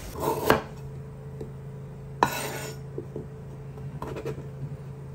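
A few clinks and knocks of kitchen utensils and crockery, one sharp clink about two seconds in, over a steady low hum.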